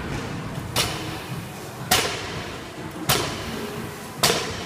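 Heavy thuds of workout equipment repeated during exercise reps, four in all, about one a second in an even rhythm.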